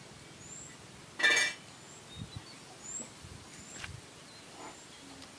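A short, loud hiss of compressed air escaping from the valve of a pump-pressurized plastic bottle rocket, about a second in. Faint bird chirps repeat in the background.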